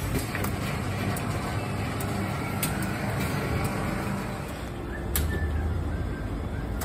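Steady low machine hum with a few sharp clicks scattered through it; the hum swells a little about five seconds in.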